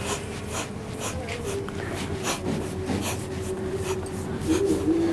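A person's voice murmuring low, with short hissing breath sounds or whispered hisses coming irregularly, roughly every half second.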